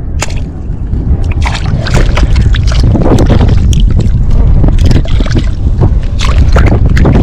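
Hands digging and scooping in wet tidal mud and shallow water, making repeated irregular squelches and splashes. A steady wind rumble on the microphone runs underneath.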